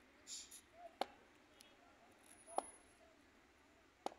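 Three sharp taps or clicks, about a second and a half apart, over a faint open-air background.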